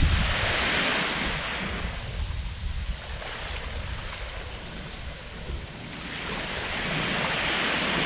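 Waves washing up on a beach, the surge loud at the start, easing off, then building again toward the end. Wind rumbles on the microphone, strongest at the start.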